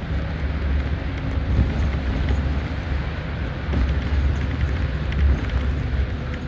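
Highway coach running through city streets: a steady low engine and road rumble with a faint constant tone.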